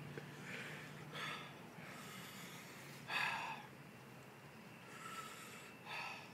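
A man breathing hard in about five sharp, noisy breaths, the loudest about three seconds in, as he copes with the burn of a Caribbean Red chili pepper in his mouth.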